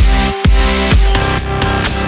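Electronic dance music with a heavy beat and sweeping bass drops.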